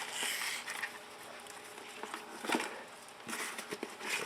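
Faint rustling and light handling noises from hands working a potted plant, with a couple of brief soft clicks about halfway through.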